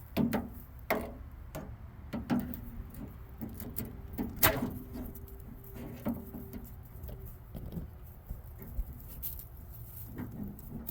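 Irregular clicks, taps and light knocks of small parts and hand tools being handled, from fitting a car door's lock and interior door handle. The sharpest knock comes about halfway through.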